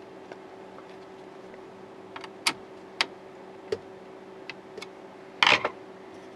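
Scattered sharp metal clicks and taps of a screwdriver driving a small screw into an LCD monitor's inverter board and the board knocking against the metal panel frame, with a louder clatter near the end. A steady low hum runs underneath.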